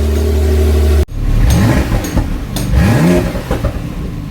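Porsche 911 Carrera S engine running steadily, then, after a sudden cut about a second in, revved in three short blips, each rising and falling in pitch.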